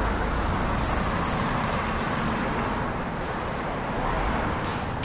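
Steady road-traffic rumble with a faint high chirp repeating about twice a second, which fades out a little past halfway.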